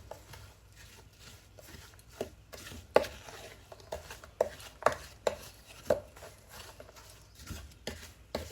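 A spoon knocking and scraping against a deep cooking pot while stirring a thick semolina halwa mixture: irregular knocks, about a dozen, some in quick pairs.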